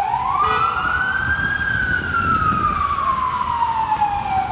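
FDNY Rebreather 1 unit's siren wailing: the pitch rises for about a second and a half, falls slowly, and starts to rise again at the end, over the low rumble of street traffic.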